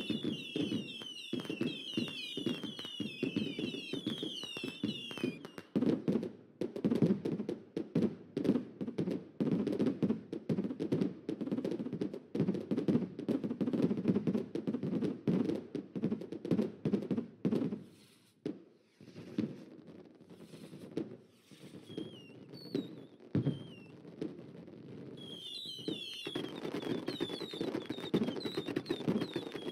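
Fireworks sound effects: rapid, dense popping and bangs, thinning out for a few seconds past the middle. Short high whistling chirps run over the pops at the start and again near the end.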